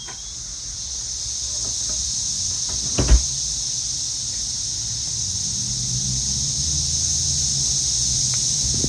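Cicadas droning in a dense, steady, high-pitched chorus that swells over the first couple of seconds. There is a single sharp thump about three seconds in.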